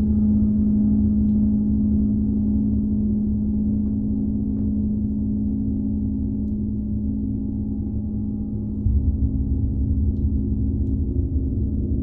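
Tibetan gong ringing on in a long, deep sustained hum full of overtones. About nine seconds in, a fresh soft swell of low rumble rises under it.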